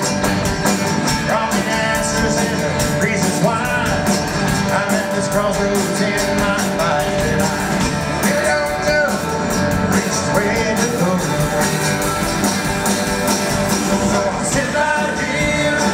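Live band playing a rock-and-roll/country song: strummed acoustic guitar and electric bass over a steady beat, with sung vocals.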